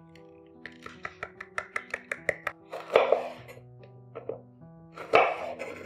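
Knife chopping food on a cutting board: a quick run of even strokes, about six a second, followed by two louder, longer kitchen clatters. Soft background music plays throughout.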